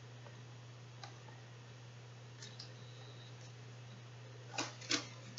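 Quiet room with a steady low electrical hum. A few faint clicks, then two sharper clicks close together near the end, from a cardboard board book being handled.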